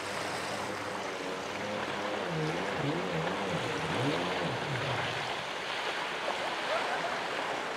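Jet ski engine running out on the water, its pitch rising and falling in waves for a few seconds in the middle as it turns and throttles, over a steady wash of surf and spray.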